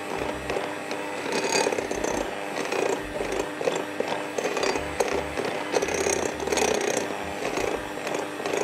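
Electric hand mixer running steadily, its twin beaters churning crumbly gram-flour dough in a glass bowl.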